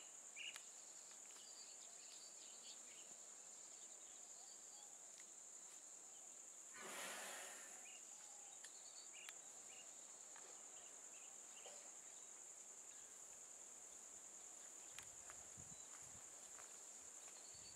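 Near silence: faint forest ambience with a steady high-pitched insect drone, a few faint chirps, and a soft rush of noise lasting about a second, about seven seconds in.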